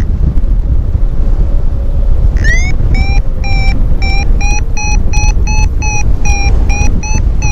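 Paragliding variometer beeping: a rising chirp about two and a half seconds in, then short steady-pitched beeps at about two to three a second, quickening a little, signalling a climb in a thermal. Loud wind rumble on the microphone throughout.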